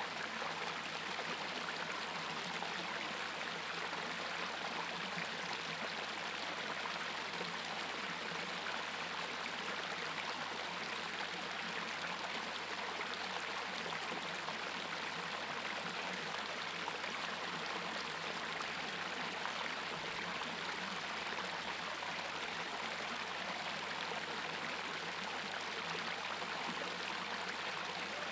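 Stream water pouring steadily over a low rock ledge into a pool: a small cascade's even rush.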